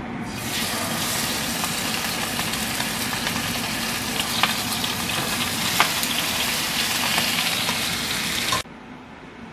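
Salmon fillets sizzling loudly in hot oil in a nonstick frying pan as they are laid in, the sizzle starting about half a second in, with a few sharp pops and clicks. The sizzle cuts off suddenly near the end.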